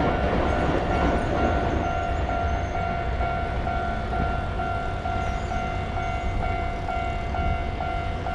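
Japanese level crossing warning bell ringing steadily at about two strikes a second. A train's rumble under it is loudest in the first two seconds, then eases to a low rumble.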